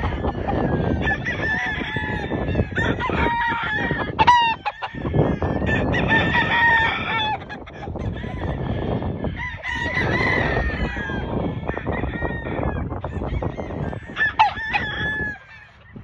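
Several gamefowl roosters crowing again and again, their calls overlapping, with some clucking in between. A steady rough rushing noise runs underneath.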